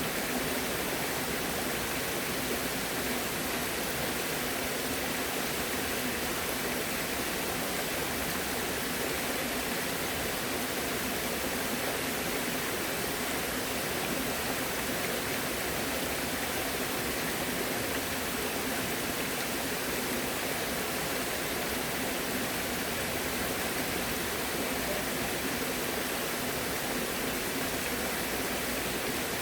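Steady, unbroken rush of flowing water, like a stream or small waterfall.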